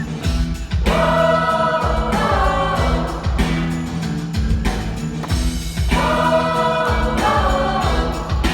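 Choir singing a Christmas song over a backing track with a steady beat.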